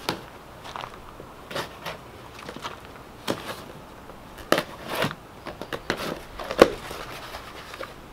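Knife slitting packing tape along a cardboard box, then the flaps being pulled open: scattered scrapes, crackles and rustles of tape and cardboard, with a sharp crack about six and a half seconds in.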